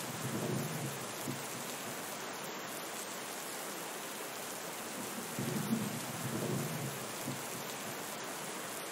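Steady rain with low rumbles of thunder: one dying away in the first second, another rolling in about five seconds in and lasting about two seconds.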